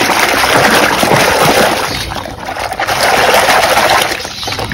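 Soapy water sloshing and splashing in a plastic basin as a hand vigorously scrubs a plastic toy gun under the foam. The churning is continuous, easing briefly midway and again near the end.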